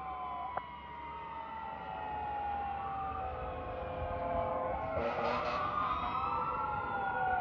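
Sirens of several fire trucks responding together, their wailing pitch sweeps overlapping and growing louder as they approach. A steady horn note sounds for about two seconds midway, with a short noisy blast about five seconds in.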